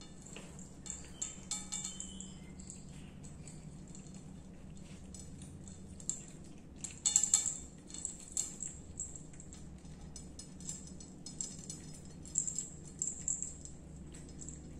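Small bell on a cat's collar jingling in short bunches of quick clinks as the cat eats from a plate, loudest about seven seconds in.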